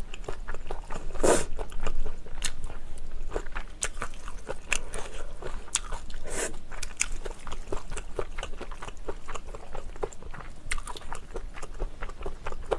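Close-miked mouth sounds of eating jjajangmyeon: wet chewing and smacking of black-bean-sauce noodles with many small clicks, and two longer slurps of noodles, about a second in and about six seconds in.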